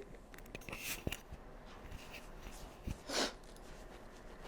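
Quiet handling sounds from a patient settling face down on a chiropractic table: a few soft clicks, then a short breathy rustle about three seconds in.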